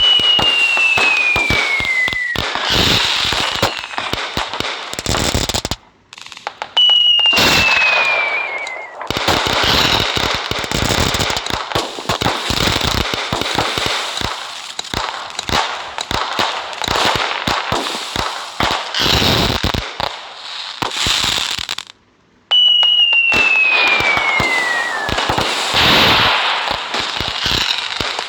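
Diwali fireworks: a whistle falling in pitch for about two seconds, then dense crackling and popping, heard three times.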